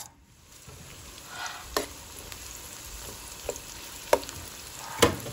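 Chopped onion sizzling in hot oil as it is stirred, the utensil knocking against the pan four times, loudest near the end.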